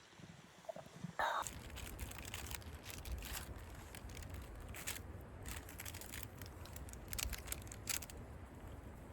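Rustling, crinkling and scraping of sleeping-bag or tent fabric being handled while settling in for the night. A loud scuff comes about a second in, followed by irregular short rustles over a low rumble.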